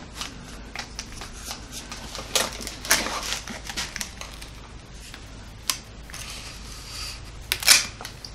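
A tape-wrapped stack of wooden blanks handled and turned over in the hands: scattered light clicks, taps and rustling of packing tape, over a steady low hum.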